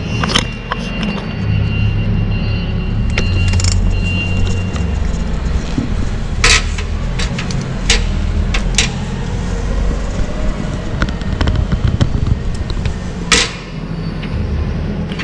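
Sharp metal clanks and knocks, about half a dozen, from handling a truck's chequer-plate step and air dryer cartridge, over a steady low rumble.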